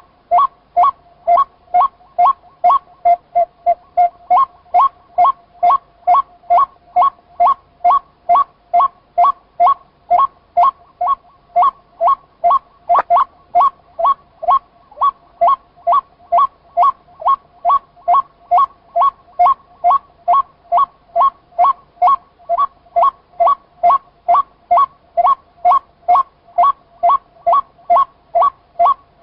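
White-breasted waterhen giving its monotonous 'cuốc' call over and over, short pitched notes evenly spaced at about two a second.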